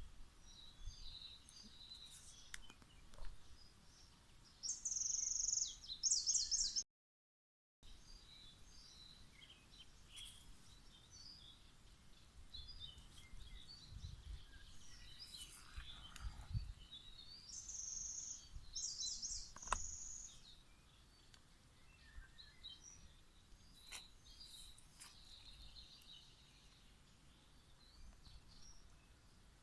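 Wild songbirds singing in woodland: scattered high chirps throughout, with two louder, very high song phrases that each end in a quick trill, one early and one past the middle.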